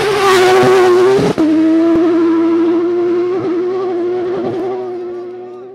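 Rally car engine held at high, nearly steady revs, wavering slightly, with a brief break about a second in. It fades out near the end.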